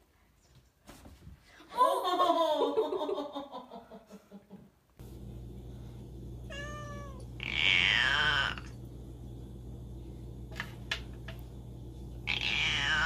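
Domestic cats meowing: a long wavering cry in the first few seconds, then a short chirping call followed by two long meows that each fall in pitch.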